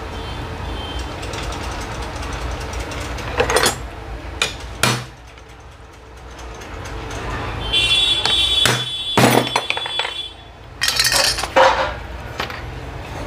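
Hammer striking a centre punch on metal to mark a hole before drilling: several sharp metallic taps in two groups, some leaving a short ring, over a steady low background hum.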